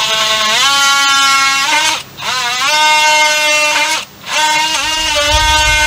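Cordless oscillating multi-tool cutting into a wooden 4x4 post: a loud, high buzzing whine whose pitch climbs as the tool gets up to speed. It stops briefly twice, about two and four seconds in, then starts again.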